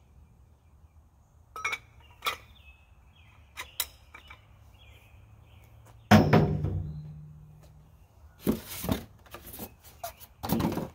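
Cardboard and styrofoam packaging being handled while a steel floor jack is unboxed. There are a few light clicks and knocks, then a loud thump about six seconds in that rings on briefly with a low hum. Near the end come scraping, rubbing bursts of packaging.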